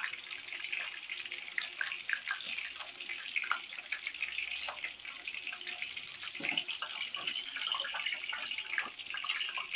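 Cauliflower florets deep-frying in hot oil in a wok: a steady sizzle with scattered crackles, and a few light knocks as a metal slotted spoon lifts the pieces out.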